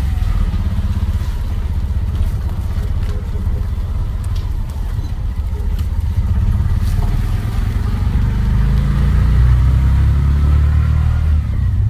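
Auto-rickshaw (tuk-tuk) engine running as it drives along a street, heard from inside the open cabin. A low steady drone that grows a little louder in the last few seconds.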